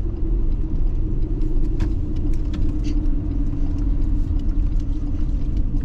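Steady low rumble of road and engine noise inside a moving car's cabin, with a constant hum.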